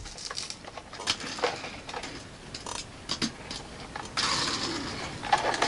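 Light clicks and taps of small diecast model cars being handled and set down on a hard floor, then about a second of rushing rattle about four seconds in, like a toy car rolling across the boards.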